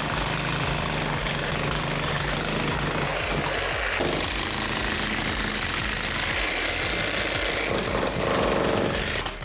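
Electric jackhammer hammering into a concrete floor slab, breaking it up. It runs steadily without letup and cuts off sharply near the end.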